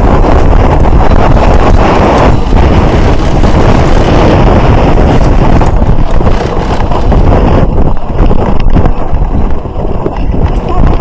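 Loud, steady wind buffeting on the microphone of a camera riding on a fast-moving horse-drawn cart, with a dense rumble underneath; it eases briefly near the end.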